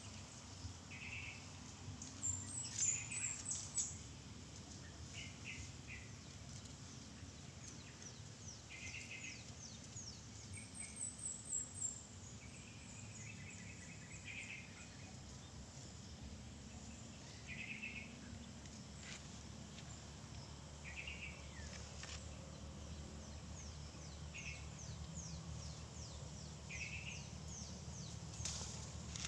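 Birds chirping: short calls every few seconds, with two louder runs of rapid high notes, about two seconds in and again around eleven seconds, over a faint steady background hum.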